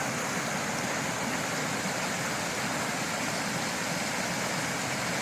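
Creek water rushing over a beaver dam in rapids and small waterfalls: a steady, even rush of water.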